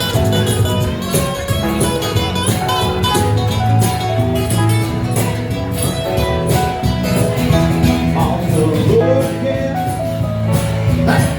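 Upbeat music with plucked guitar, a steady beat and some singing.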